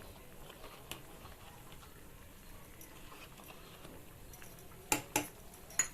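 Raw mango curry simmering quietly in a pan, a faint steady bubbling, with a small tick about a second in and two sharp knocks of a utensil near the end.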